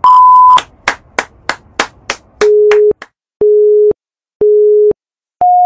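Film-leader countdown sound effect: a beep, a run of quick clicks about three a second, then three lower beeps a second apart and a final higher beep.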